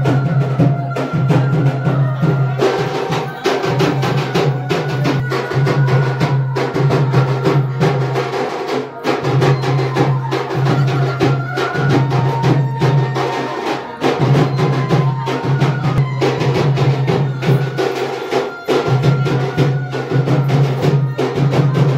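Music with loud, busy drumming: rapid beats over a low, pulsing bass and held higher tones.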